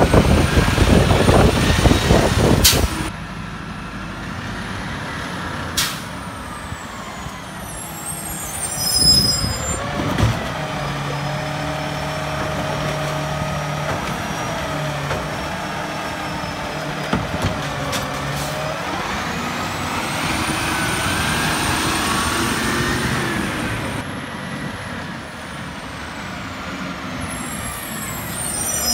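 Autocar ACX garbage truck with a New Way Roto Pac automated side-loader body working curbside carts: the engine speeds up and settles again as the hydraulic arm lifts, dumps and sets down a cart, with sharp knocks and an air-brake hiss.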